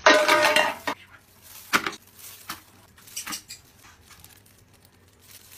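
A short pitched cry or voice lasting under a second, then a few light knocks and clatters of a bowl on a tabletop.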